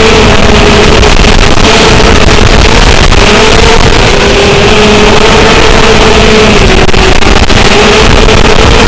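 Steady, loud whine of a small remote-controlled aircraft's electric motors and propellers, heard from its onboard camera, wavering slightly in pitch as it flies. Wind rushes over the microphone throughout.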